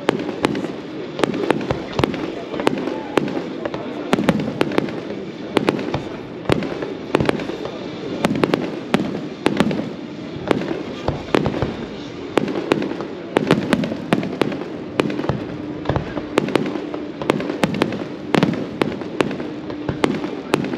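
Fireworks display: aerial shells bursting in quick, irregular succession, with sharp bangs about two or three a second.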